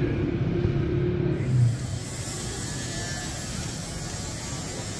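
Outdoor street ambience: a steady low buzzing hum like a small motor for the first second and a half, then an even background hiss of city noise.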